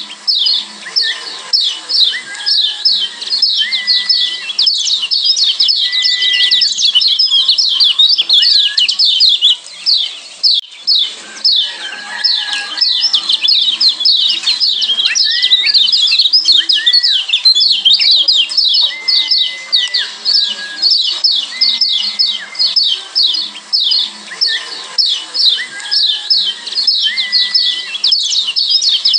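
Lombok yellow white-eye (kecial kuning) calling: a fast, unbroken run of sharp, high-pitched 'ciak' chirps, about four a second, with short level whistles lower down every couple of seconds.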